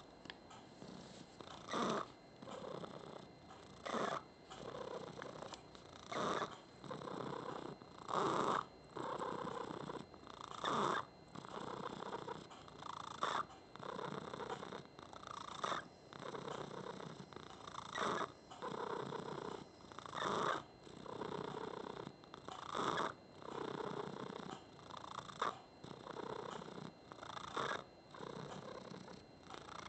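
Domestic tomcat purring steadily, with a louder squeaky note on each breath that comes round about every two and a half seconds.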